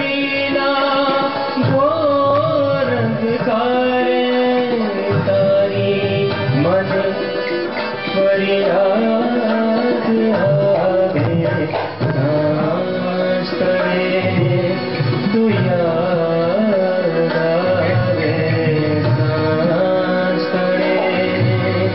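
A man singing a melodic song, accompanied by his own harmonium and a steady percussion beat.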